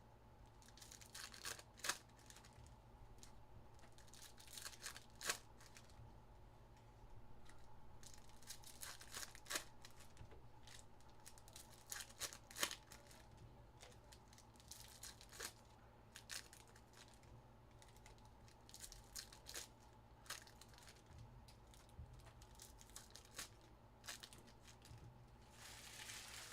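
Card-pack wrappers being torn open and crinkled, with faint scattered rustles and sharp ticks as the packs and cards are handled.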